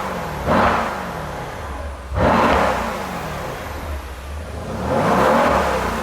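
Mercedes-AMG C63's twin-turbo V8 revved three times while standing, each rev rising and falling back to idle, the second the loudest. It runs through the standard exhaust without flaps, in Comfort mode on the older engine software.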